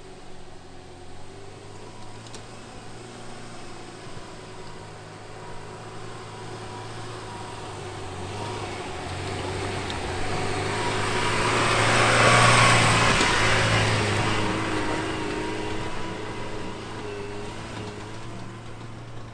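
An off-road SUV's engine running steadily while the car drives through the terrain, with a rushing noise of tyres and motion that swells to its loudest about two-thirds of the way through and then dies away, like the car passing close by.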